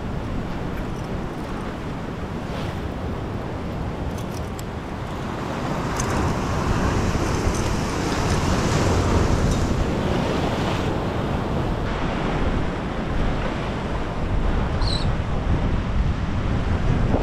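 Wind buffeting the microphone over the steady wash of surf breaking below, with the low rumble of the wind strongest throughout.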